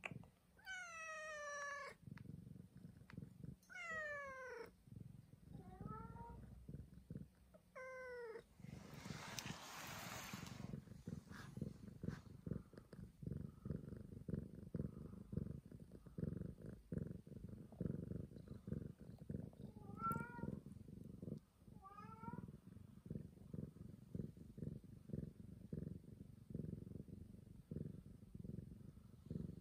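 Tabby cat meowing in short calls that fall in pitch, four in the first nine seconds and two more about twenty seconds in, and purring steadily through much of the rest. A brief hissy burst of noise comes about nine seconds in.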